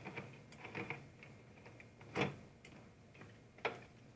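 Metal hard-drive caddy handled in the opened chassis of a Dell Inspiron One 2205 all-in-one PC: a series of light clicks and knocks of sheet metal and plastic. The two loudest knocks come about two seconds in and near the end.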